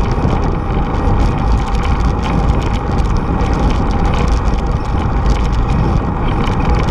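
Steady wind rumble on the microphone of a camera riding on a moving bicycle, mixed with tyre and road noise from rolling on asphalt.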